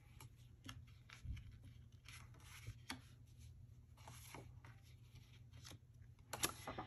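Faint rustling and light taps of a photo print and pink cardstock being handled and slid over a scrapbook page, with a few sharper paper clicks near the end.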